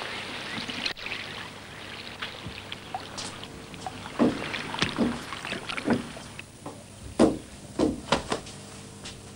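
Small wooden boat at the water's edge: a steady wash of water, then, about halfway in, a string of irregular knocks and splashes as people climb aboard.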